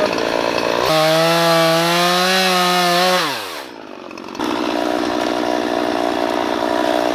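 Two-stroke chainsaw cutting wood. About a second in it revs freely at full throttle with a high, steady whine, then the revs fall away a little after three seconds. About a second later the saw is working in the wood again.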